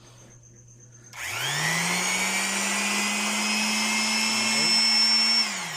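Mitsushi 360-watt electric palm sander switched on about a second in, its motor whining up to speed and running steadily, then switched off near the end and winding down.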